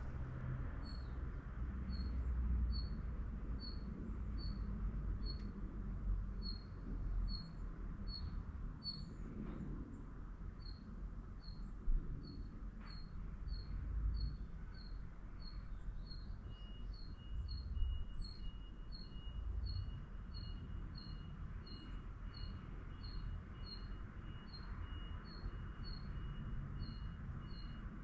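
A small bird chirping over and over at an even pace, about twice a second, with a second, lower and faster run of chirps joining about halfway through, over a low background rumble.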